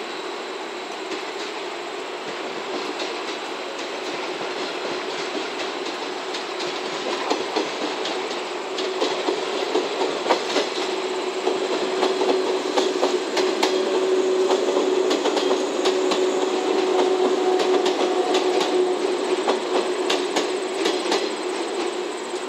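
JR West 113-series four-car electric train running past, its wheels clicking irregularly over rail joints and points over a steady rumble. It grows louder as it comes near, with a steady hum rising through the middle.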